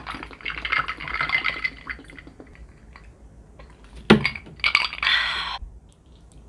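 Tea poured from a large plastic bottle into a glass: about two seconds of streaming, splashing liquid. About four seconds in comes a sharp knock, then a second of drinking noise.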